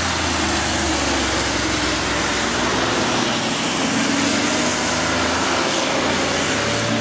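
Cars driving on a wet race track, a Porsche 911 and a BMW hatchback: a steady hiss of tyres through water on the tarmac over the hum of the engines. Near the end one engine's pitch rises slowly as a car accelerates out of the bend.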